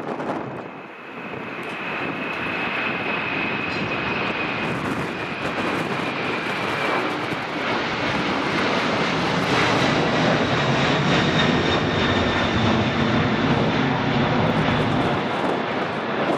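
KLM Boeing 747-400's four turbofan engines at takeoff thrust during the climb-out: a steady jet roar with a thin high whine that sinks slightly in pitch. It grows louder after the first couple of seconds and is loudest in the second half.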